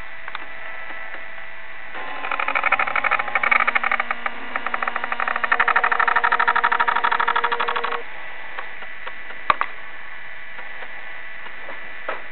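Small electric motor whirring with a fast gear-like chatter for about six seconds, starting about two seconds in and stopping abruptly: a camcorder's zoom motor driving the lens out from a close-up. A steady hiss lies under it, and two short clicks come near the end.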